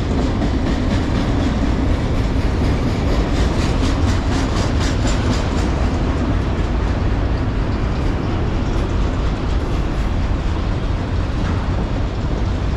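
Freight train of enclosed autorack cars rolling past close by: a steady rumble of steel wheels on rail, with a rhythmic clickety-clack of wheels over rail joints through the first half.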